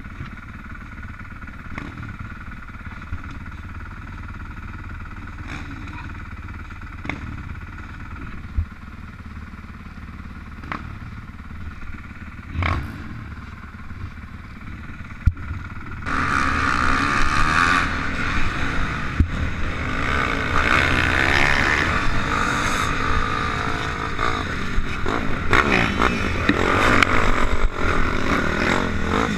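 Motocross dirt bike engine idling steadily for about the first half, then opening up with a sudden rise in loudness as the bike revs and accelerates, running hard with rising and falling revs to the end.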